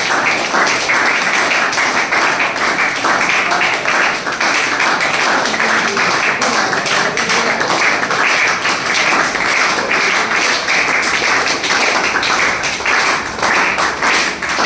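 A room full of people clapping steadily, a dense run of hand claps that thins into more separate claps near the end.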